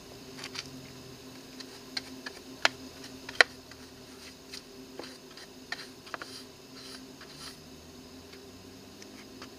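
Hand brush sweeping crumbled rotten wood across an aluminium door threshold: scattered light clicks and taps of debris on metal, the two sharpest about two and a half and three and a half seconds in, over a faint steady hum.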